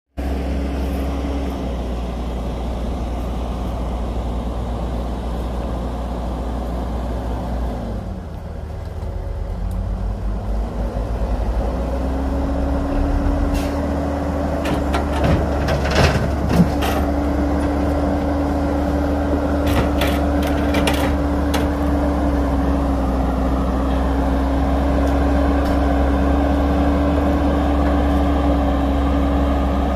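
Heavy diesel engine of earthmoving machinery running steadily. Its pitch dips about eight seconds in and climbs back by about twelve seconds. From about thirteen to twenty-one seconds in there are a series of sharp metallic knocks and clanks.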